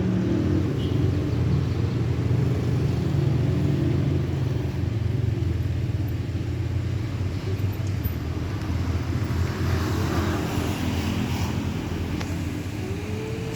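A vehicle engine running with a steady low rumble, easing off a little in the second half.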